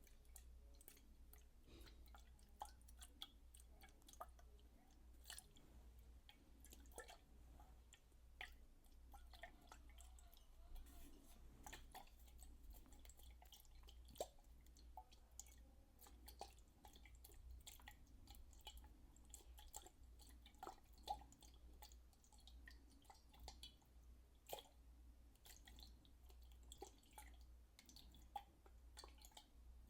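Faint, irregular drips and small wet clicks and squishes of water close to the microphone, some with a short pitched plink, over a steady low hum.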